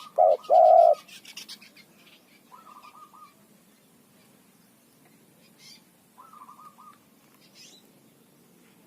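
A spotted dove cooing, two loud low notes in the first second, then quiet. Short soft chattering chirps from other small birds come twice, with a few thin high chirps.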